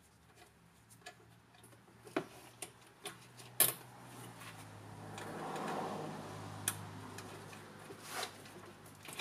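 Scattered small metallic clicks and taps of a crimped wire terminal and nut being handled and fitted onto a stud of a golf cart's forward/reverse switch, the sharpest about three and a half seconds in, with a short rustle of wire and gloves a little past the middle. A faint steady low hum runs underneath.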